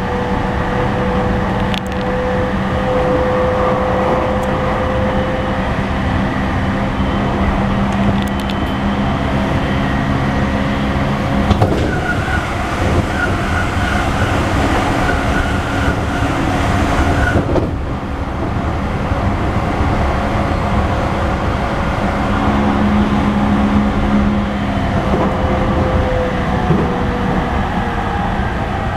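Running noise heard inside a JR East E231 series suburban train car (equipment-renewed, Hitachi IGBT-VVVF inverter) cruising between stations. There is a steady rumble of wheels on rail with humming motor tones, and a higher warbling tone comes in for about five seconds in the middle.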